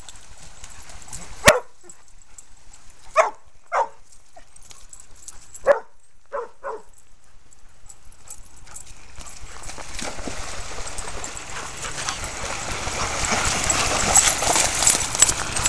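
Dogs barking: about six short, separate barks in the first seven seconds. From about nine seconds a rushing noise rises steadily and becomes the loudest sound near the end.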